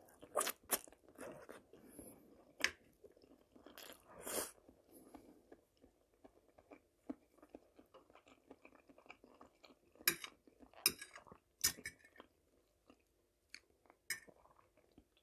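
Close-miked eating of spaghetti with fried forest mushrooms: quiet chewing and wet mouth clicks and smacks, scattered unevenly, with a few sharper clicks bunched about ten to twelve seconds in.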